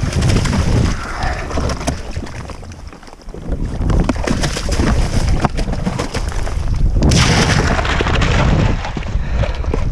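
A jet ski running across the open ocean, with heavy wind buffeting the microphone and water rushing. It drops briefly about three seconds in, then comes back up.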